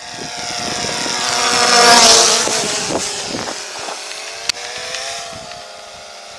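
DJI Phantom quadcopter's propellers whining, swelling to their loudest about two seconds in as it flies close past, then easing off with the pitch wavering. A single sharp click about halfway through.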